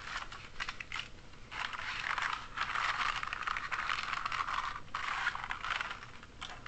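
Lego pieces rattling, clicking and scraping as they are handled, with a long busy stretch of rattling in the middle and scattered clicks around it.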